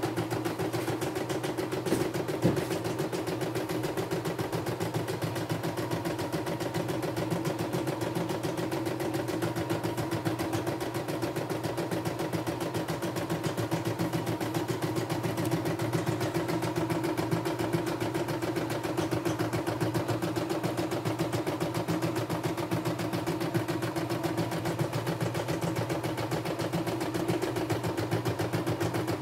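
CNY E960 sewing-embroidery machine stitching an embroidery design: the needle runs at a rapid, even pace with a steady motor hum. Two sharper clicks come about two seconds in.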